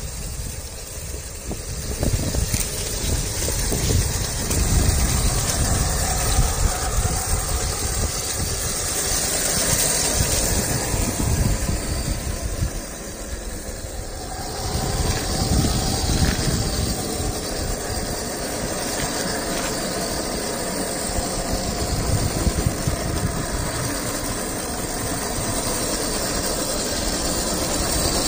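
Scale RC crawler with a brushed 45T motor, its electric drivetrain whirring as it drives over gravel and dry grass, under a steady hiss with low rumbling gusts of wind on the microphone.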